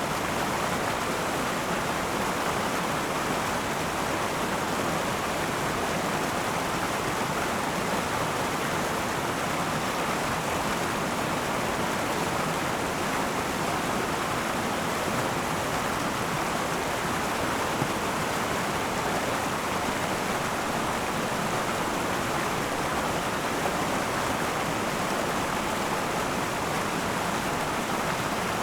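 A river flowing over rocks: steady, even rushing of water, strongest in the mid range, with no break or change.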